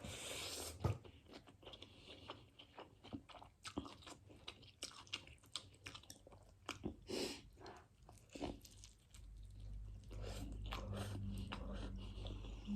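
Close-up mouth sounds of someone eating Korean ramen noodles: chewing, wet smacks and small clicks, with a longer noisy burst in the first second. A steady low hum comes in about nine seconds in.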